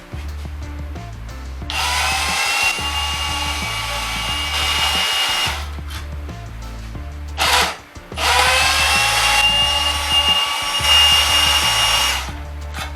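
A power tool's electric motor spins up with a rising whine and runs steadily for about four seconds, stops, gives a short burst, then runs again for another four seconds. Background music with a steady beat plays underneath.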